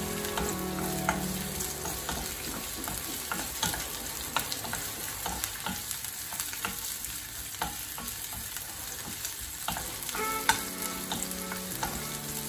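Onion, garlic and ginger sautéing in hot oil in a frying pan: a steady sizzle with frequent sharp clicks and scrapes from a utensil stirring against the pan.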